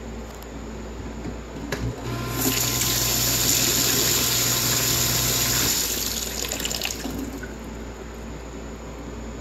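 Sink faucet turned on about two seconds in, water rushing into a plastic tub in a stainless steel sink to fill it with hot water. The trailer's on-demand water pump hums steadily while the tap runs and cuts out shortly before the water tails off.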